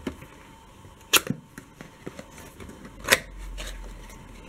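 Small cardboard product box being opened by hand: light scraping and rustling of the card, with two sharp snaps, about a second in and about three seconds in, as the lid and tuck flap come free.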